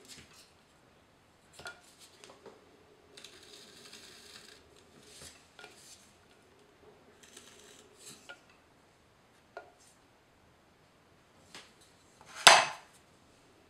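Handling noises from shaping a clay bowl on a potter's wheel with a wooden tool: short spells of soft scraping and a few light clicks, then one sharp knock near the end, the loudest sound.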